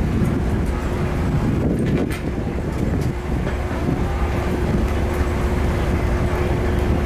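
Small passenger ferry's engine idling at the quay: a steady low rumble with a constant hum, and a few light clicks about two seconds in.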